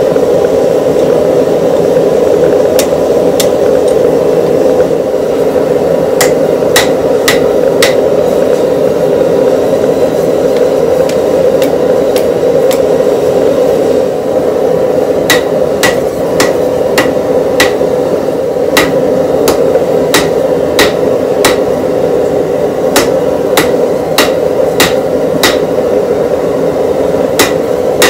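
Hand hammer striking red-hot steel on a small anvil, with a ringing note on each blow, in runs of a few strikes about two a second with a long pause in the middle. Under it runs the loud, steady rushing noise of the forge.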